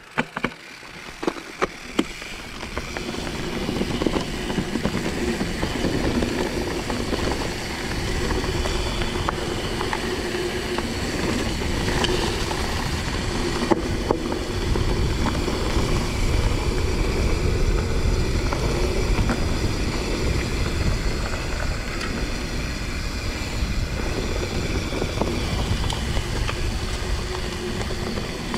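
Mountain bike ridden at speed on a rough track: wind rushing over the camera microphone and the tyres rumbling. It begins with a few sharp clicks and builds up over the first few seconds, then runs steady.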